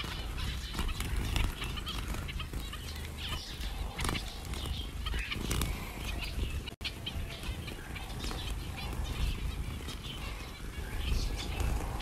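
A flock of small finches, zebra finches among them, chirping and fluttering their wings as they land on and take off from a hand. Their short, scattered calls sit over a steady low rumble.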